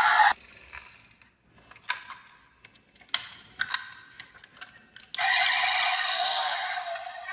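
Marbles clicking sharply against a marble run track a few times, then about five seconds in a steady rolling rush begins as marbles run down the track.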